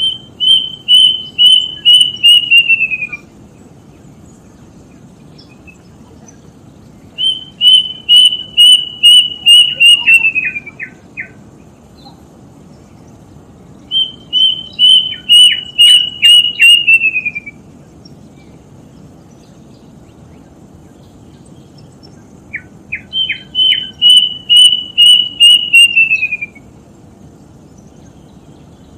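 A bird called 'tutit tutit' sings a whistled phrase of about eight quick notes, level and then sliding down at the end, four times about seven seconds apart, with a few short lower notes after some phrases. In folk belief this call is taken as a sign that someone has died.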